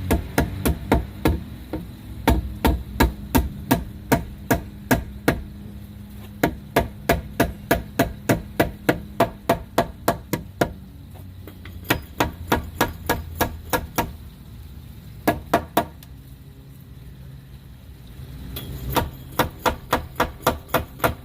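Hammer blows struck in quick, evenly paced runs of about three a second, with short pauses between the runs and a pair of blows near the middle, as the new porch post is worked into place.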